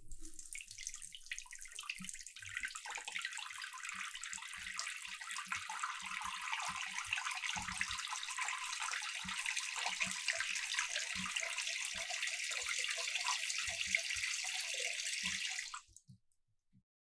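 A weak stream from a tap running into a sink, heard from about 10 cm away: a steady splashing hiss with small low plops in it, which cuts off suddenly near the end.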